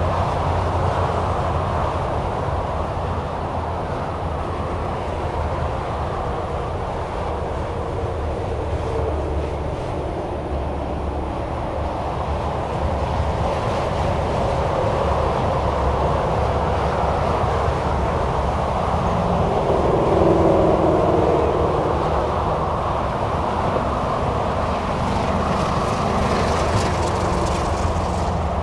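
Steady drone of highway traffic, cars and semi-trucks passing continuously with tyre noise and a low engine rumble; one vehicle swells louder as it goes by about twenty seconds in.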